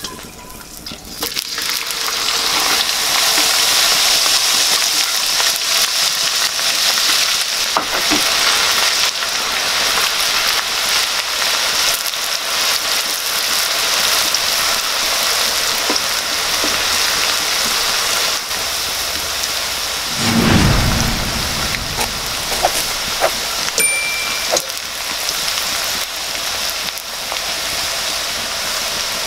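Shredded banana blossom deep-frying in hot oil in a wok, a loud, steady sizzle that builds over the first two or three seconds. A few light knocks of a wooden spatula stirring, and one low thump about two-thirds of the way through.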